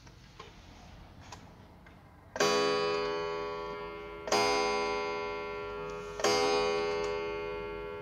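Citizen quartz wall clock striking three o'clock on its steel coil gong: three strikes about two seconds apart, starting a little over two seconds in, each ringing on and slowly fading like a church bell.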